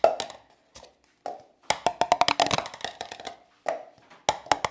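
Cups being shuffled on a tabletop: quick runs of hard taps and clicks, densest about two seconds in and again near the end.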